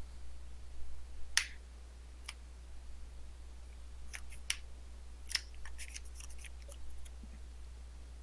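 Magic: The Gathering cards being shuffled and handled on a playmat: about a dozen short, crisp swishes and clicks, most of them between about four and six seconds in, heard through a webcam microphone.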